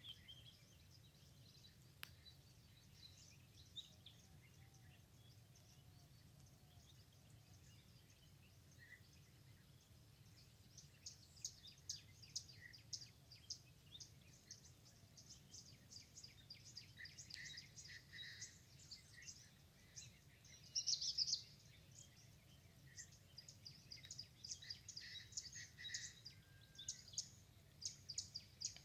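Small birds chirping and twittering, faint and scattered at first, then busier from about a third of the way in, with a brief louder flurry about two-thirds through. A faint steady low background noise runs underneath.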